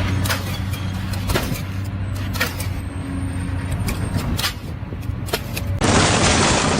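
A machine's motor running steadily, with repeated sharp knocks and clanks, then a loud hiss starting near the end.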